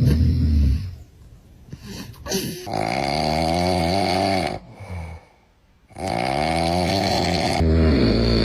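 Loud snoring: a short, deep snore at the start, then two long snores of about two seconds each with a wavering, rattling tone.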